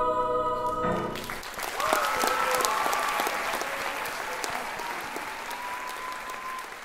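A treble choir's final held chord ends about a second in, and the audience breaks into applause with some cheering, slowly dying down.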